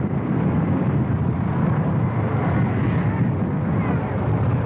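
Cars racing round a grass track, their engines making a steady, rough drone with no single car standing out.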